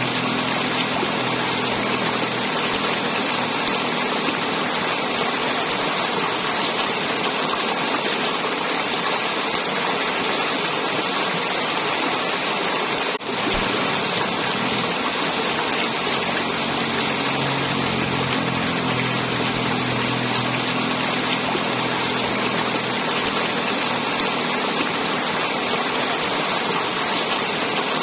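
River water flowing and gurgling steadily, with a faint low hum underneath; the sound dips out briefly about 13 seconds in.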